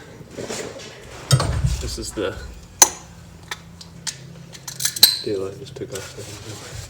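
Clinks and clatter of metal parts and tools being handled, with three sharp knocks: about a second in, near the middle, and a couple of seconds later.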